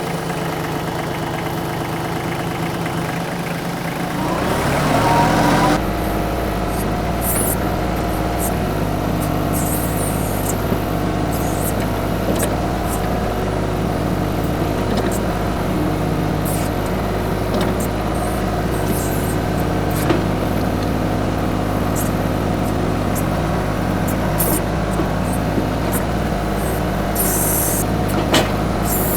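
TYM 2515H compact tractor's diesel engine running while working, rising in pitch about four to six seconds in and then holding steady, with scattered clicks and scrapes over it.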